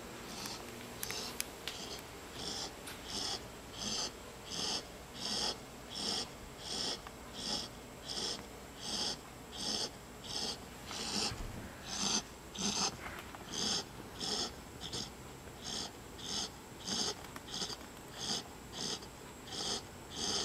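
Golden retriever puppy snoring in his sleep: short, high, wheezy snores at a quick, even rhythm, about three every two seconds, brought on by an awkward sleeping position.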